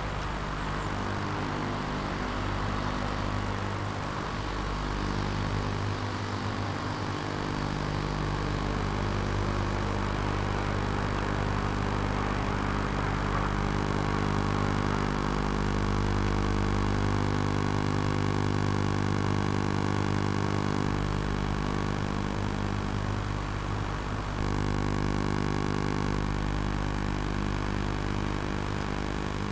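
Caterpillar 769C haul truck's large diesel engine running steadily at a constant low speed, with a steady hiss over it.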